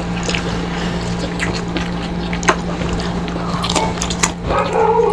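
Close-up eating sounds: scattered clicks, smacks and chewing as crispy fried tilapia is eaten by hand, over a steady low hum. A brief pitched sound comes near the end.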